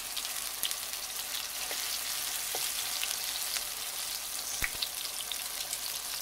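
Whole tomatoes, dried oregano and chile flakes frying in a shallow pan of oil: a steady sizzle with scattered small pops and crackles.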